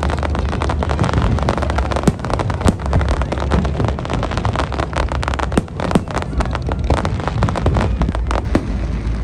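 Fireworks display going off: a dense run of sharp bangs and crackles, many a second, over a low steady rumble.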